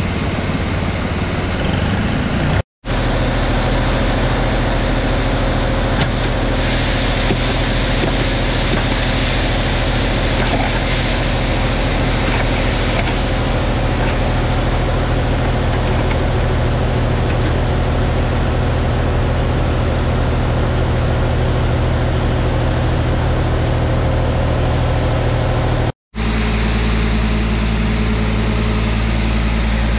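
Tractor engine running steadily, driving a grain auger, with shelled corn pouring from a trailer's hopper gate into the auger hopper in a steady hiss. The sound drops out for an instant twice.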